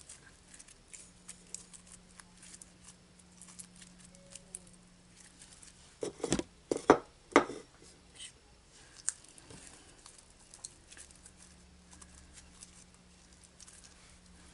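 Hands kneading and squishing sticky slime full of small foam beads, giving faint sticky crackles and clicks, with a few louder clicks about six to seven and a half seconds in.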